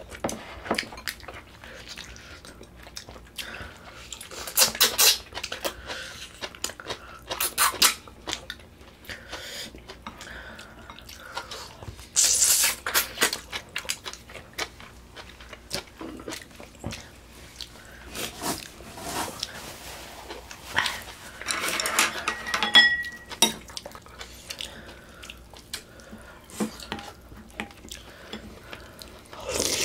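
Eating sounds from a meal of gamja-tang (Korean pork bone soup): chewing, with spoons and chopsticks clinking against the bowls in scattered short clicks, a louder noisy burst about twelve seconds in and a brief squeak a little past twenty seconds.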